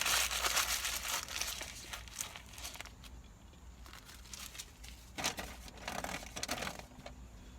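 Food wrapper being crumpled: dense crinkling for the first three seconds or so, then a few shorter bursts of crinkling near the end.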